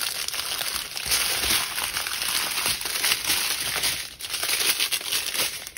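Plastic packets of diamond-painting drills crinkling steadily as they are handled.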